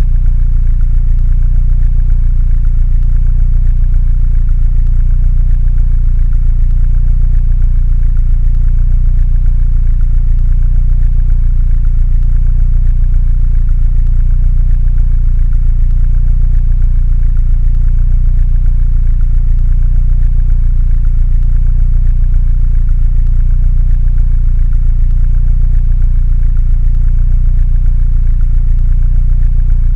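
Mini Cooper engine idling steadily, a deep even running with most of its sound low in pitch and a faint regular pulse above it.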